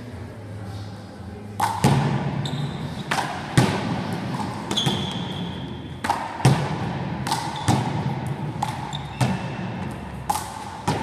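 One-wall handball rally: the small rubber ball smacks sharply off the wall, the floor and the players' hands, about one or two hits a second, starting about a second and a half in. Trainers squeak briefly on the sports-hall floor a few times.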